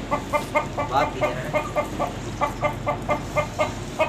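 Rooster clucking in a quick, even run of short clucks, about four a second.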